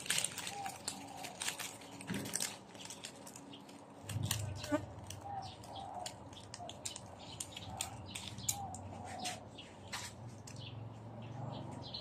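Banana-leaf wrappings crackling and rustling as they are torn open by hand, with many short clicks throughout. Faint bird chirps run underneath.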